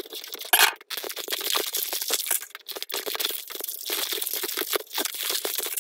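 Plastic wrapping being slit with a blade and torn off a plastic toy capsule ball, crinkling and crackling throughout.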